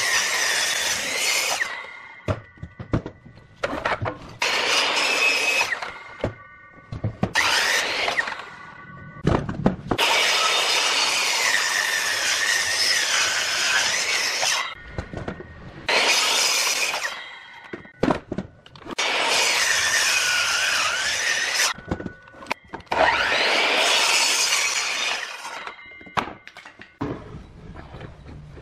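Power miter saw cutting through thick pine blocks in a series of cuts, each lasting a few seconds. In the short gaps between cuts the blade whines and there are clicks.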